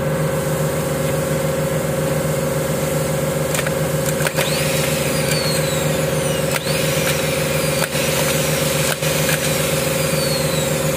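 Rebuilt vehicle starter motor bench-tested on jumper cables, spinning free with a steady pitched hum. Its stuck carbon brushes have been freed and its worn solenoid contacts turned to their unworn side. The run has a few brief dips and clicks midway.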